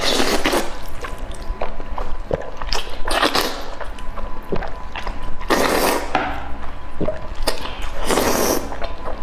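Close-miked eating: noodles slurped about four times, with wet chewing and lip-smacking clicks in between.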